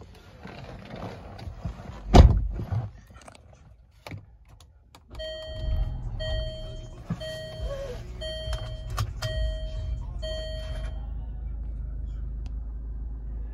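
A heavy thump about two seconds in. Then the 2012 Range Rover Evoque's 2.0-litre turbocharged four-cylinder starts, about five seconds in, and settles into a steady idle. Over the idle a warning chime dings about once a second, six or seven times, then stops.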